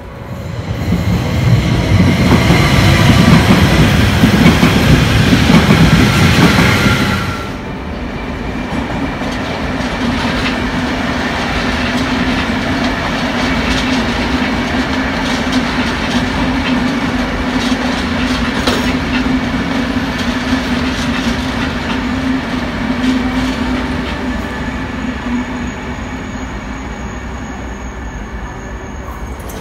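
Trains passing on the tracks: a loud rush of a passing train for the first seven seconds that cuts off abruptly, then a VR Pendolino electric train running by with a steady low hum and scattered clicks of wheels over rail joints.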